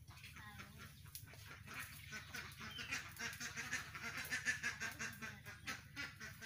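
Birds calling in a rapid, continuous chatter that builds up about two and a half seconds in and is loudest near the middle, over a low steady hum.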